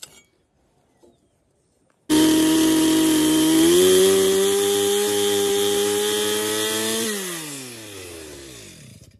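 Stihl two-stroke chainsaw running at full throttle on a wooden beam. It starts suddenly about two seconds in and holds a steady high pitch. From about seven seconds the throttle is let off and the pitch falls steadily as the engine slows and fades.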